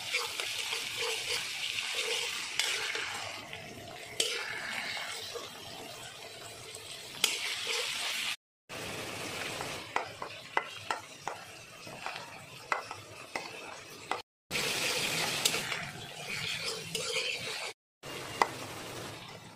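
Cut okra being tossed by hand with ground spices in a steel bowl: a rustling hiss of the pieces moving, with scattered clicks of okra and fingers against the metal. The sound drops out abruptly three times.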